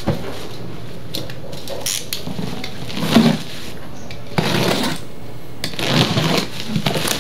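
Bubble wrap around a cardboard box being slit open with a utility knife, the plastic crackling and rustling in about three spells.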